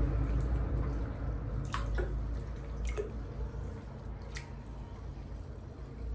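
Water splashing and dripping in a plastic basin as a baby monkey swims, with a few sharp drips or splashes about two, three and four and a half seconds in, over a low steady rumble.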